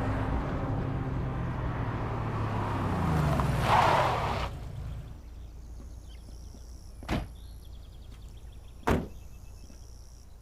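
A car running and coming to a stop, with a short rush of noise as it halts, then two car doors slamming shut about two seconds apart.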